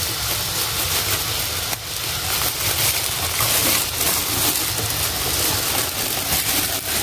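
Clear plastic bag of flatbreads being unclipped and opened by hand, crinkling, over a steady background hiss and low rumble.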